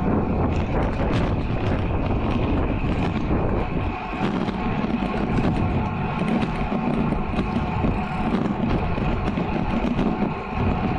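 Wind rushing over a bike-mounted action camera's microphone while riding a road bike at about 35 km/h, with the tyres rolling on asphalt. It is a steady noise, heaviest in the low end.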